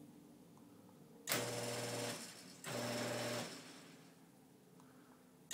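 Genie Pro screw-drive garage door opener motor driving the traveler along the screw rail with the door disconnected, running in short bursts: it starts with a sharp click about a second in, stops, starts again, winds down, and kicks in again at the end. The erratic stop-and-start is the opener's fault, which the owner thought pointed to the circuit board.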